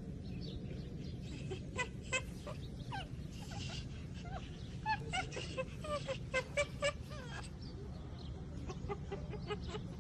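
A run of short, pitched animal calls, coming thick and fast through the middle, over a steady low hum.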